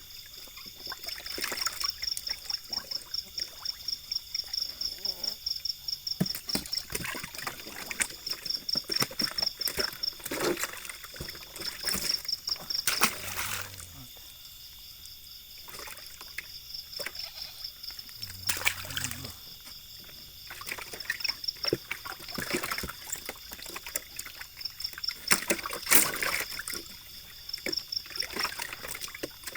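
Water splashing and trickling in short irregular bursts, as live catfish broodstock are handled in water. An insect chirrs with a rapid, even pulse in the background.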